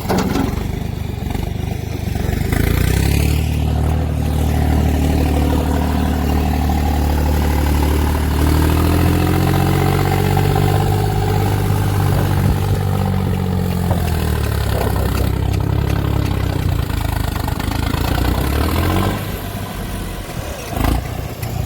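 Tractor engine working hard under load while levelling soil, its pitch rising about eight seconds in and easing off near the end, with a whistle over the engine note.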